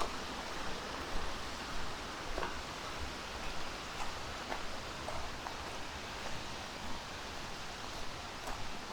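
Steady rushing of a mountain valley stream, with a few faint scattered ticks over it.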